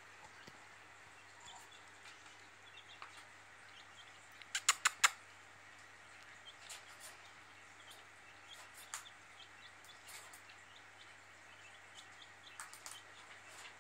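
Red-tailed black cockatoo making small clicks and soft clucking sounds, with four sharp short sounds in quick succession about four and a half seconds in.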